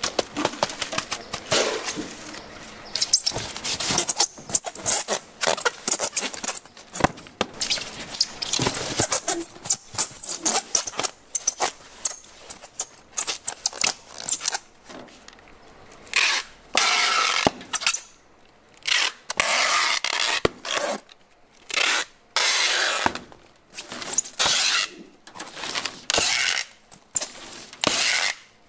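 Crushed ice and a styrofoam box handled by hand, with many short clicks and scrapes. In the second half, packing tape is pulled off a handheld dispenser roll across the box lid in several long rasping pulls of a second or two each.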